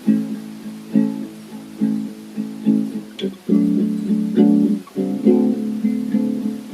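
Guitar playing the song's chord pattern with no voice, plucked in a steady rhythm with a strong stroke about once a second and lighter notes between.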